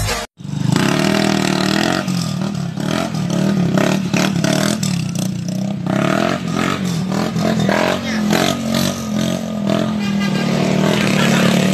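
Small motorcycle engine revving, its pitch rising and falling over and over, with scattered clicks and clatter.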